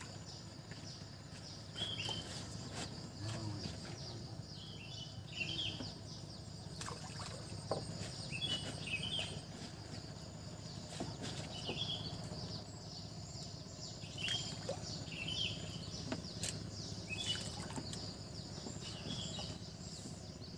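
A bird giving short high chirps in little groups every second or two, over a steady high hum and faint lapping of water.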